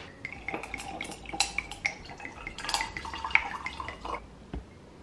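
White wine poured from a bottle into a stemmed wine glass over ice cubes, with the ice clinking against the glass, after some small clinks and rattles; a single knock near the end.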